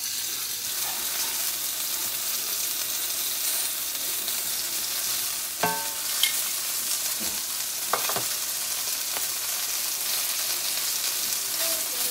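Chicken breast pieces sizzling steadily in hot oil in a nonstick skillet, with a couple of light clinks of metal tongs against the pan about halfway through.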